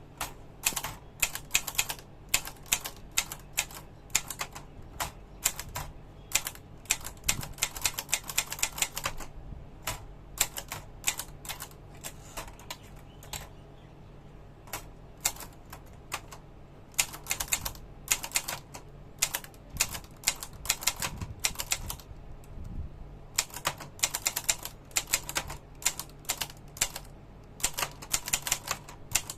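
Rover 5000 typewriter being typed on: quick runs of sharp key strikes, broken by short pauses and a few sparser stretches.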